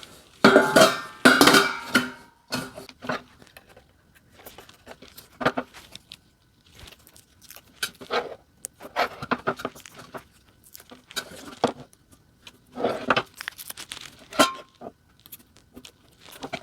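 Intermittent clatter, scraping and metallic clinks of parts being handled while an elevated dog bowl stand is assembled, with metal legs screwed onto a wooden board.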